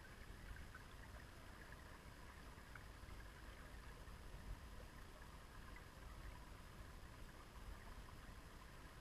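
Faint river current heard from underwater: a low, steady rush with a few small ticks.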